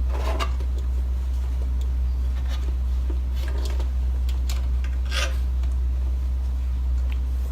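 Steady low electrical hum, with scattered small clicks and rubs of screws being undone and a part of the photo booth being handled.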